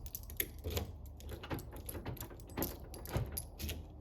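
Light, scattered clicks and small rattles, like a set of keys being handled during a door lock test.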